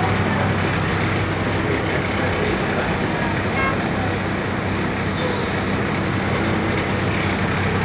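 Steady drone of a city bus's engine and road noise heard from inside the bus as it creeps along in traffic, with a brief high beep about three and a half seconds in.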